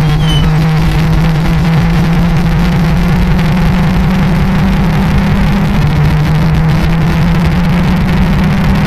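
A loud, steady low-pitched alarm drone with a harsh hiss over it.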